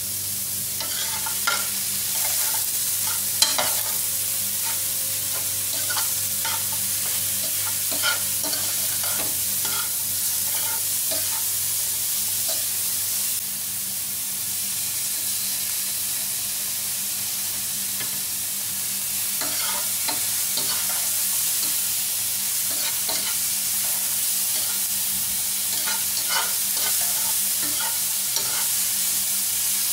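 Gizzards and onions sizzling in oil in a metal pot on a gas stove, with a steady hiss. A metal ladle clinks and scrapes against the pot as the food is stirred, with one sharper clink about three and a half seconds in.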